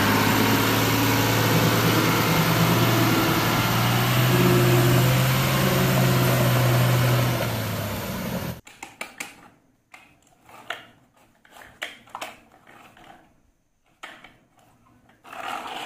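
A Tata tipper truck's diesel engine running steadily as the truck drives over muddy ground, cutting off suddenly about eight and a half seconds in. After that, faint scattered plastic knocks from a toy dump truck being handled.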